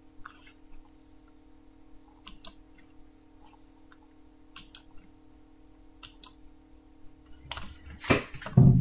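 Computer mouse clicks, mostly in quick pairs like double-clicks, every second or two over a steady low electrical hum. Near the end there is a louder, short burst of noise.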